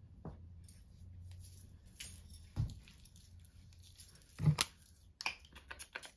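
A few dull thumps of handling close to the microphone, the one about four and a half seconds in the loudest, then a quick run of short clicks near the end as a perfume bottle's spray pump is pressed; the bottle is a little broke.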